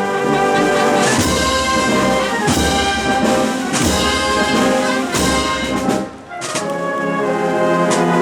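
A Spanish wind band (banda de música) playing a processional march, brass leading over sharp drum strokes. The music drops off briefly about six seconds in, then the band comes back in.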